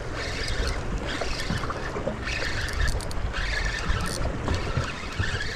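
Wind and water noise on a boat with its twin Suzuki outboard motors running. A spinning reel is being cranked in short spells, its whir coming and going over the noise.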